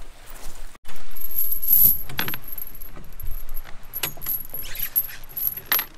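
Galvanised anchor chain clinking and rattling as it is hauled up by hand over a boat's bow and dropped into the anchor well, with many sharp metallic clinks. The first second holds quieter footsteps crunching on coral rubble before the chain starts.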